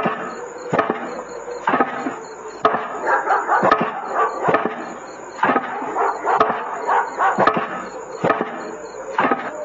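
A dog barking repeatedly, a sharp bark roughly every second.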